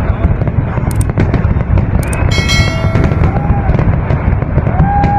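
Fireworks display bursting without pause: a dense low rumble of booms with sharp crackles throughout. A brief high-pitched tone sounds about two seconds in, and crowd voices call out near the end.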